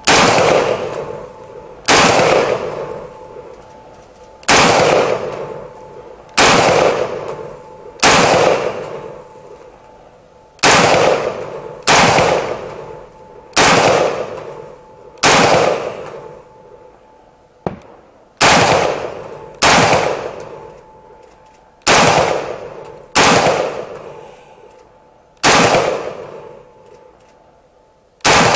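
K1A carbine fired without a suppressor in semi-automatic single shots, about fourteen unsuppressed gunshots at an uneven pace of one every one to two and a half seconds. Each shot is followed by a long echo that dies away over more than a second.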